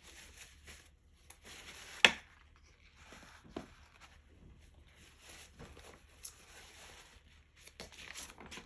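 Soft scratchy rustling and scraping of painting work, brush and paper handled in short strokes, with a sharp tap about two seconds in and a few lighter clicks.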